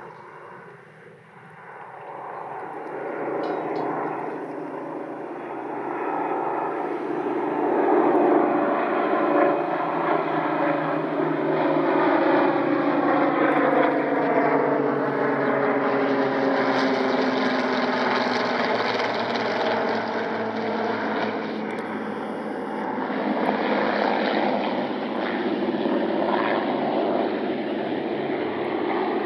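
Formation of Spitfires and Hurricanes flying over, their V12 piston aero engines running together in a steady drone. The sound grows louder over the first several seconds, and its pitch falls as the planes pass overhead.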